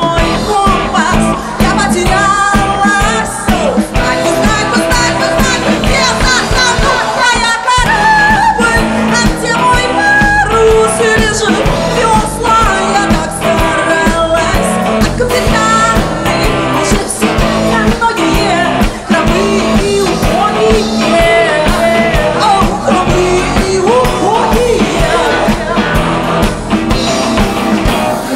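Live rock band playing a song: a woman sings lead over strummed acoustic guitar, electric bass and a drum kit keeping a steady beat.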